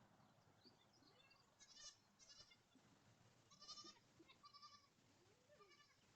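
Goats bleating faintly, about five short, quavering, high bleats in a row.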